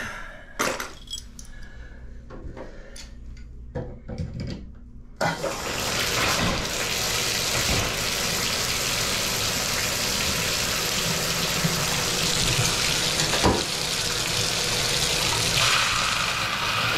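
A few knocks and clicks of tools being handled, then about five seconds in water suddenly starts running hard from a bathtub spout, a steady rushing that holds on. Near the end the sound of the flow changes as the new diverter spout is worked.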